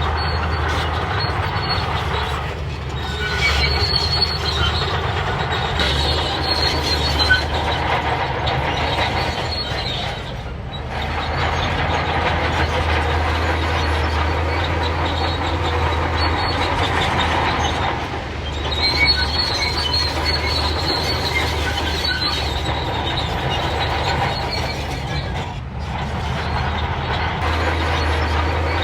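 Crawler bulldozer at work: its diesel engine runs steadily while the steel tracks squeal and clank, the high squeal coming in spells. The sound drops briefly about four times, roughly every seven or eight seconds.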